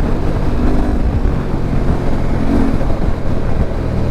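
Yamaha Ténéré 700's parallel-twin engine running under way through a Camel ADV exhaust with the dB killer removed, a steady loud rumble that swells and eases slightly with the throttle.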